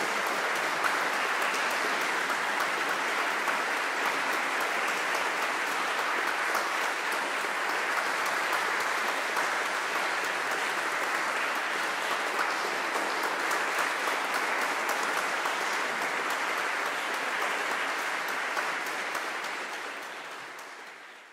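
Concert audience applauding steadily, a dense patter of many hands clapping that fades out over the last couple of seconds.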